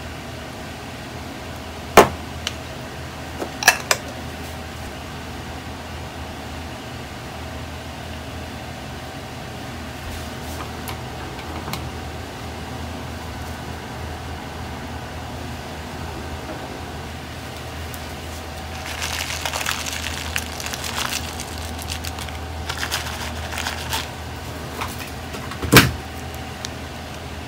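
Toppings going into a ceramic ramen bowl on a stainless steel counter. A few sharp clicks and knocks come near the start, a stretch of rustling about two-thirds of the way through, and the loudest knock near the end, all over a steady mechanical hum.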